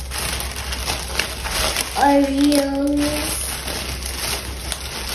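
Plastic shopping bag rustling and crinkling as a child rummages through it, with a child's voice holding one sung note for just over a second about two seconds in.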